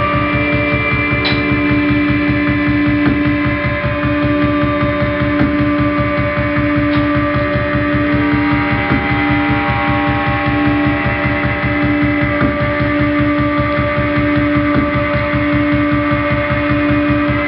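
Experimental drone music from electric guitar and keyboard electronics: a loud sustained hum of held tones over a fast, even pulsing throb in the low end, with higher tones shifting in and out.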